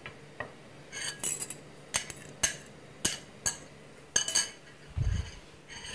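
Dishes and utensils clinking: a series of sharp clinks, roughly two a second, with a dull low thump about five seconds in.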